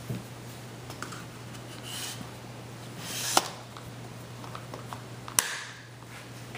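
Magpul CTR polymer rifle stock being handled and slid onto an AR's buffer tube: light plastic clatter and scraping, with two sharp clicks about three and a half and five and a half seconds in as the stock's latch catches on the tube.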